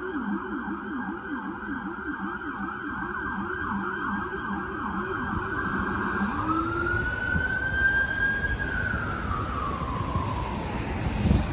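Emergency vehicle siren in fast yelp mode, about three sweeps a second, switching about six seconds in to a slow wail that rises, holds and falls away, over street traffic noise.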